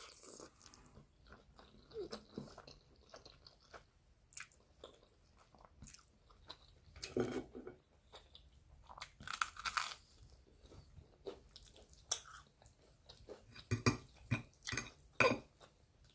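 Close-up eating sounds: wet chewing and mouth smacks with irregular clicks while spaghetti is eaten, louder bursts around seven, ten and fifteen seconds in.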